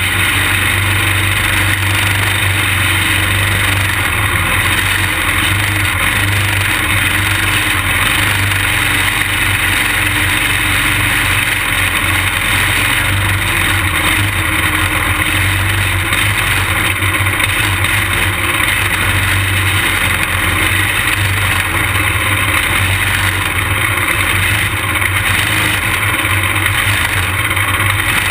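Small racing kart engine heard from on board, running steadily at low speed with other karts' engines close around it.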